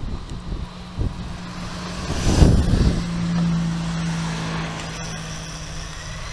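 Airbus A320's jet engines running at low taxi power as the airliner rolls past close by: a steady low hum, with a louder swell of rumbling noise about two and a half seconds in.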